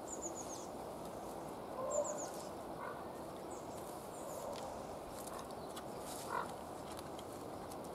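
Faint outdoor garden ambience: a steady low background noise with a few short, high bird chirps in the first couple of seconds, and soft rustling as a large fabric sheet is lifted, unfolded and laid flat on a table.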